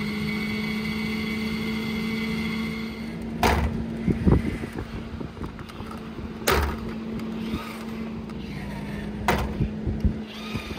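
Fantastic Fan 7350 roof vent's motor running with a steady whine, then three loud clunks a few seconds apart as the lid binds while closing: its lift bracket is mounted backwards, so the arm pulls itself through the bracket hole.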